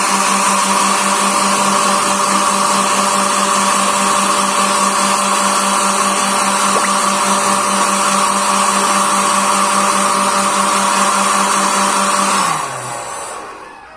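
Homemade jet engine running at a steady speed with an even hum and hiss, then cut off near the end, its pitch falling as it spins down.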